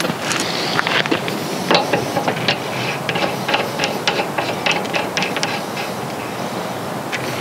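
Brass fitting of an LPG cooker hose being screwed by hand onto a metal gas bottle adapter: irregular small metallic clicks and scrapes from the threads, thinning out near the end.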